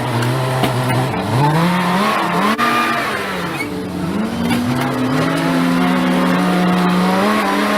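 A motor vehicle engine revving: it climbs and drops in pitch several times, then holds steady at higher revs for the last few seconds.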